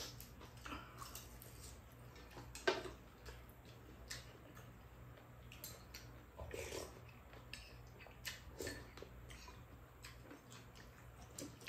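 Metal spoon and chopsticks clinking and scraping against bowls while eating, in faint scattered clicks. The sharpest clink comes about two and a half seconds in.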